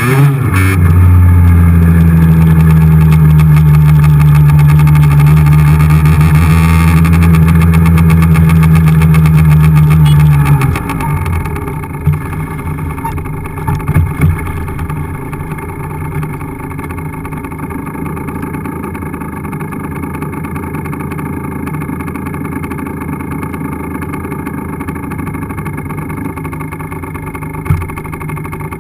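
A 50 cc two-stroke motorcycle engine held at steady high revs for about ten seconds. The throttle then closes and it drops to a much quieter low running as the bike rolls on over snow, with a couple of brief knocks.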